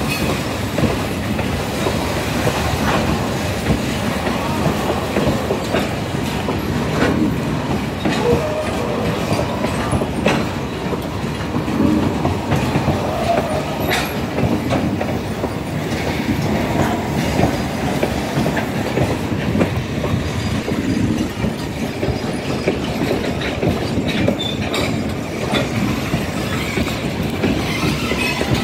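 Loaded freight wagons of a goods train rolling slowly past. Steel wheels rumble continuously and clack irregularly over rail joints.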